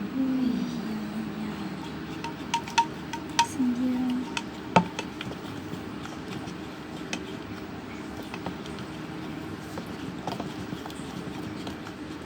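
Light clicks and taps, some with a short ring, from a utensil knocking against the mixing container while slime is stirred, with one louder knock near the middle.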